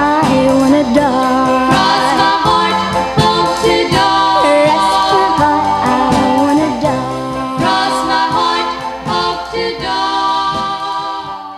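Girl-group pop record: women's voices singing over a band with drums, fading out at the end of the song near the end.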